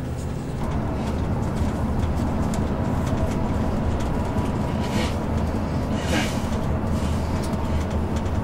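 Steady engine and road rumble of a moving vehicle heard from inside the cab, with a faint steady whine. Two brief higher-pitched sounds come about five and six seconds in.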